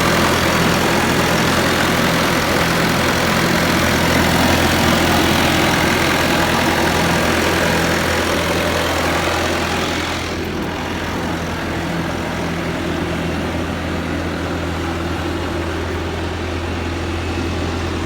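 Bobcat S510 skid steer loader's diesel engine running steadily with a constant low hum. About ten seconds in the sound drops and softens, losing much of its higher-pitched noise.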